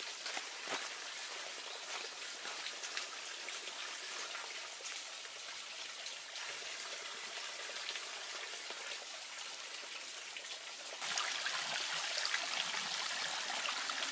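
Spring water trickling in a small forest stream, a steady splashing with many small drips; about eleven seconds in it becomes louder and closer.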